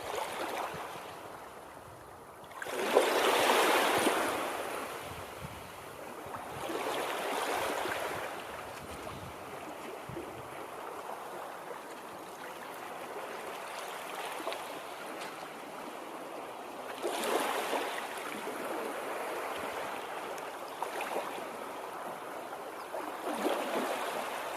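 Moving water rushing steadily, swelling louder in several surges, the biggest about three seconds in.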